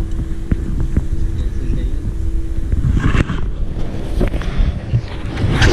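Wind rumbling on the microphone over open water, with a steady hum that stops about halfway through. A few short knocks and rustles follow in the second half.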